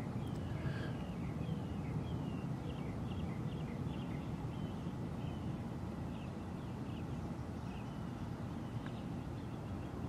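Birds chirping in many short, high, repeated notes over steady low outdoor background noise.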